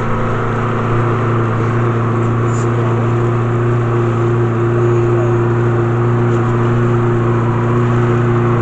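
A small canal workboat's engine running steadily with a low, even hum. It gets a little louder about a second in.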